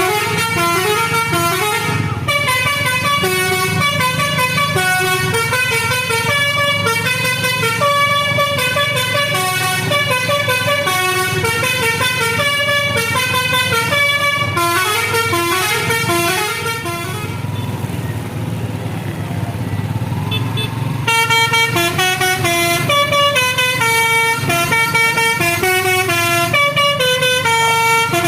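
Tour bus's telolet basuri horn playing a fast melody of stepped notes over the steady hum of the bus engine. The melody stops for a few seconds, leaving only the engine, then starts again.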